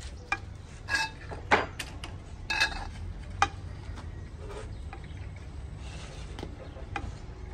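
Metal tools or parts clinking and clanking about five times in the first three and a half seconds, the third the loudest, over a steady low hum.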